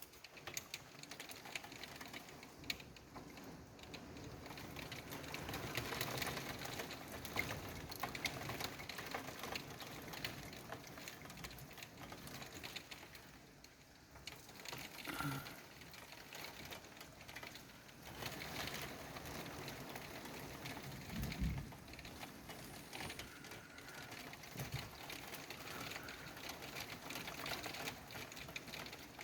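Heavy thunderstorm rain pattering, a dense run of rapid ticks of drops striking a hard surface, swelling and easing. A short low thump comes about three-quarters of the way through.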